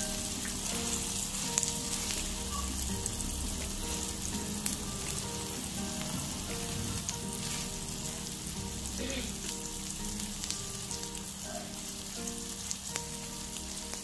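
Sirloin steak frying in butter in a hot pan: a steady sizzle with scattered crackles and pops.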